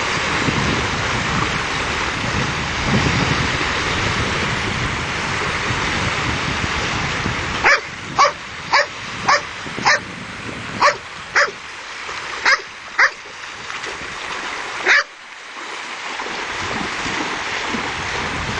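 A dog barks about ten times in short, sharp barks over some seven seconds, starting about eight seconds in. Steady surf and wind noise runs underneath.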